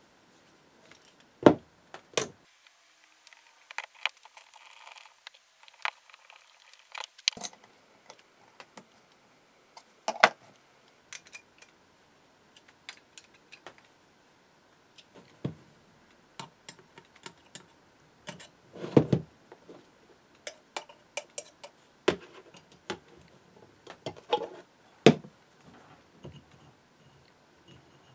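Aluminium and brass parts of a small model steam engine being handled and fitted together by hand on a bench: scattered light clicks, taps and knocks of metal, with a few sharper knocks among them.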